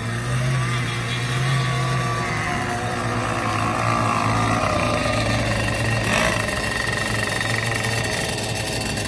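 Radio-controlled model racing hydroplane's small engine running at speed over the water, a steady droning note whose pitch wavers and shifts as the boat runs past.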